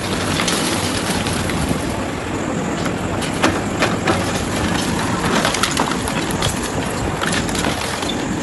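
Hitachi EX140 hydraulic excavator's diesel engine running steadily while its pulverizer jaw works, with repeated sharp cracks and snaps through the din.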